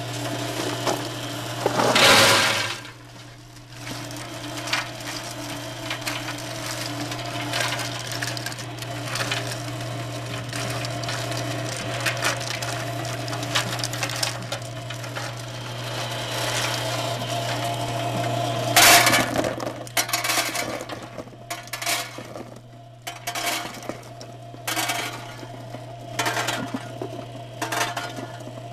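Hinged steel belt parts conveyor running with a steady low hum while small metal cup-shaped parts clink and clatter against the steel belt cleats and hopper, with two loud rattling bursts about two seconds in and near the nineteen-second mark.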